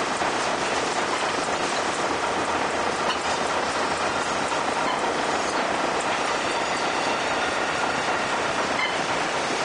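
Heller crankshaft pin milling machine cutting a crankshaft pin: a steady, even hiss and rumble of machining that holds at one level throughout.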